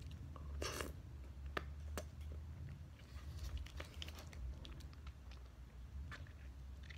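Eating a fruit jelly straw: a short slurp about half a second in, then chewing and scattered small clicks and crinkles as plastic jelly straw packaging is handled.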